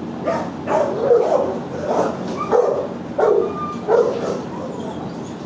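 Dogs barking over and over in a shelter kennel room, a bark every half second to second, with a short whine among them.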